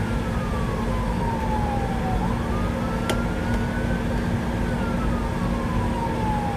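Fire engine's siren wailing, heard from inside the cab: the tone falls slowly, rises again about two seconds in, then falls once more, over the steady drone of the truck's engine and road noise. A single sharp click sounds about halfway through.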